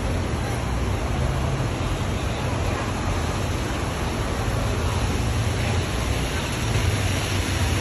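Single-deck city bus engine running as the bus pulls slowly across the bays, its low rumble growing louder near the end as it comes closer. A steady hiss sits underneath.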